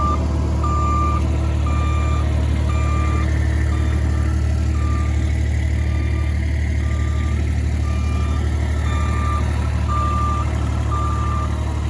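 Excavator's travel alarm beeping about once a second over the steady running of its engine.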